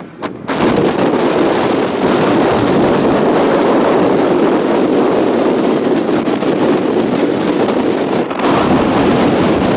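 Renault rally car's engine running hard as it approaches at speed and passes close by, with gravel and dust thrown up from its tyres. The sound comes in strongly about half a second in and dips briefly near the end before rising again.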